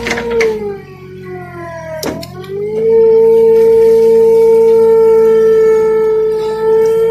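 Komatsu excavator running with a strong steady whine. Over the first two seconds the whine sinks in pitch and fades, then about three seconds in it jumps back up and holds steady and louder.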